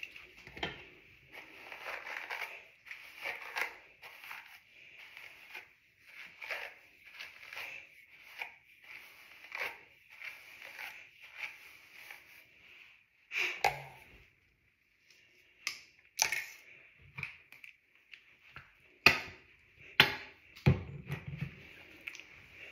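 Wet, conditioner-coated hair being detangled close to the microphone: repeated short rustling strokes about once a second, then a few sharp clicks and a low thump in the last few seconds.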